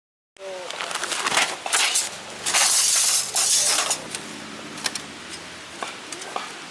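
Wood campfire crackling with sharp irregular pops over a steady rush of river water. The sound starts suddenly just after the opening, with a louder noisy stretch a few seconds in.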